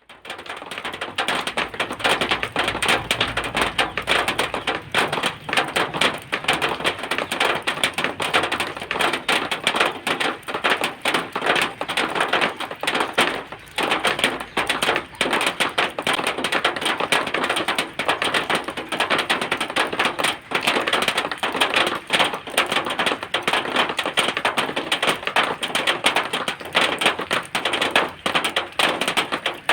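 Rain falling on zinc sheeting: a dense, steady patter of many drops striking thin metal.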